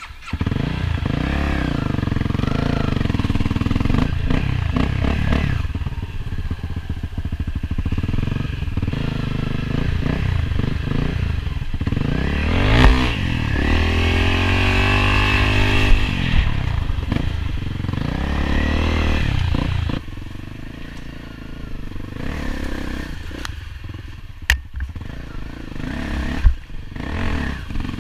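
Enduro dirt bike engine revving up and down as it is ridden along a trail, with the pitch climbing and falling. Past the middle it runs quieter, broken by a few sharp knocks.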